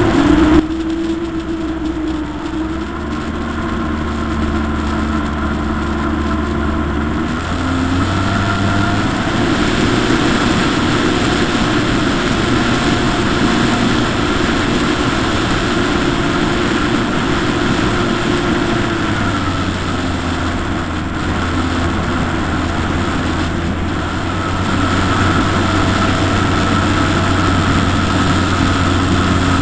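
Model airplane's motor and propeller running steadily, heard from a camera on board with air rushing past. The pitch steps up about a quarter of the way in, drops back a little past halfway and rises again near the end as the throttle changes.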